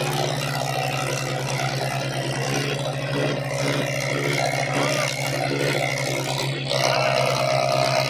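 Diesel tractor engines running hard and steady under load in a tractor pulling contest, with crowd voices around them. The engine noise grows a little louder near the end.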